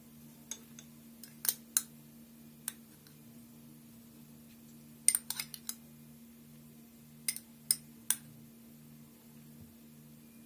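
A metal spoon clinking against a dish as fried chicken pieces are spooned out, in short clusters of sharp taps, with the loudest group about five seconds in. A faint steady low hum runs underneath.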